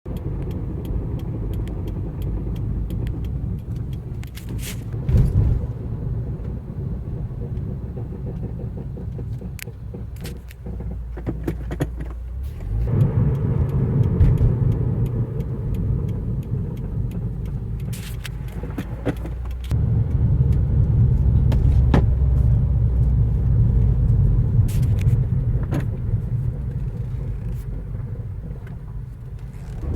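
2015 Subaru WRX Limited running, with a low rumble from the car that swells louder twice, at about 13 seconds and again from about 20 to 27 seconds, with short clicks throughout. This is the brake noise the owner likens to a roller coaster coming to a stop; he says it returns after a dealer rock cleaning and rotor turning.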